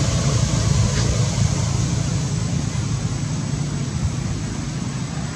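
Steady outdoor background noise: a low, unsteady rumble with an even hiss over it, and a faint tick about a second in.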